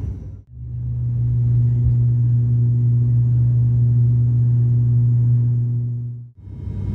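Steady drone of an ATR 72-600's turboprop propellers at climb power: one deep, even tone with fainter overtones. It fades in about half a second in and drops out shortly before the end.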